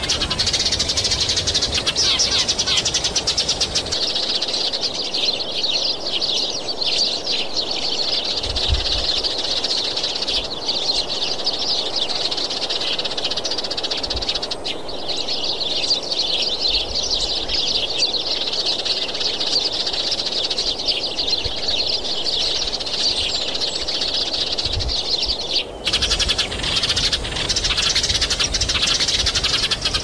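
Small birds chirping in a dense, continuous chatter of high, rapid calls.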